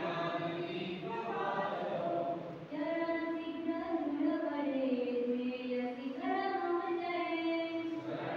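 A group of voices singing a devotional song together in unison, with long held notes that slide slowly in pitch.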